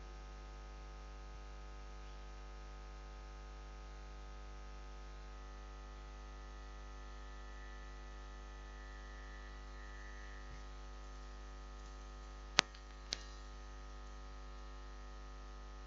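Steady low electrical mains hum from the open microphone and sound system, with no one speaking. Two sharp clicks half a second apart come near the end.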